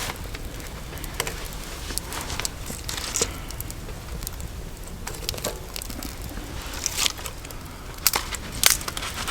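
Campfire crackling, with scattered short pops and clicks over a steady low rumble.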